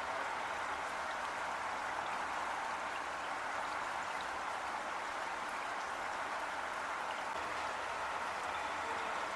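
Heavy rain falling steadily: an even, unbroken hiss of drops with faint scattered patters.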